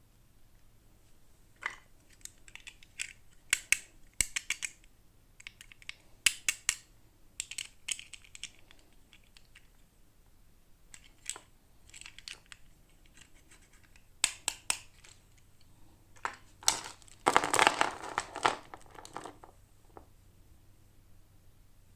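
Toy packaging handled and opened by hand: scattered short crinkles, scratches and clicks, with a longer, louder stretch of crinkling about three-quarters of the way through.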